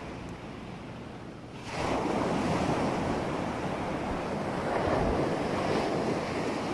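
Ocean surf washing onto a beach: a steady rush of waves that swells louder a little under two seconds in.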